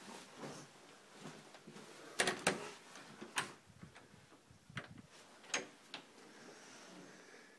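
A handful of scattered sharp knocks and clicks, the loudest two close together a little over two seconds in, with quieter ones following over the next few seconds.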